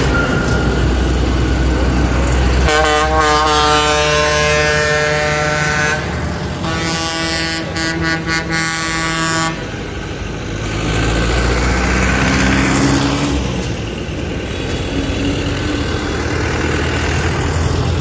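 Tractor engines running as a parade passes, with two long horn blasts on different notes, one after the other, a few seconds in. Later an engine revs up briefly.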